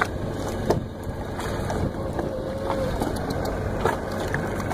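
Steady low rumble of wind and lapping water, with two short knocks, one about a second in and one near the end.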